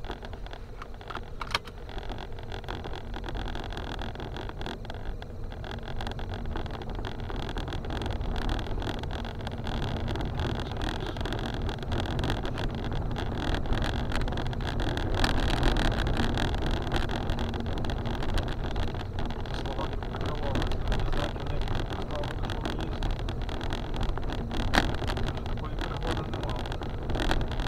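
A car driving slowly over a rough, broken dirt road, heard from inside the cabin: the engine and tyres give a steady rumble, with frequent sharp knocks and rattles from stones and the suspension. The rumble grows louder about ten seconds in.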